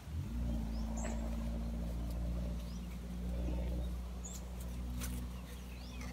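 Steady low hum of a distant engine, with a few short high bird chirps and a single sharp click about five seconds in.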